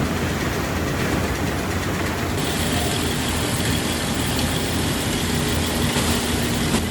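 Steady mechanical running noise of puffed rice processing machinery, with a low hum; the sound shifts abruptly about two and a half seconds in.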